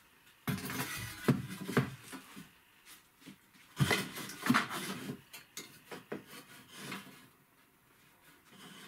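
Irregular wooden knocks and scrapes as a hand saw and floor boards are handled and set against a joist for marking and cutting, with the loudest clatters about half a second in and again about four seconds in.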